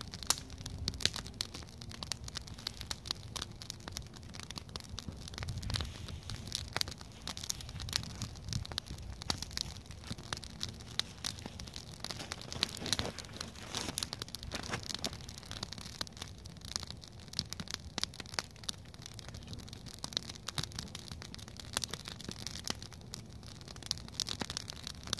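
Wood fire crackling, with a dense, irregular run of small pops and snaps over a faint hiss.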